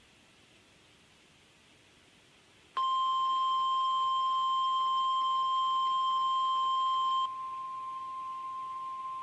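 Weather radio warning alarm tone: a steady, piercing single-pitch beep that starts abruptly about three seconds in after a near-silent gap, then drops to a noticeably quieter level a little over four seconds later and keeps sounding. It is the alert tone that introduces a test tornado watch broadcast.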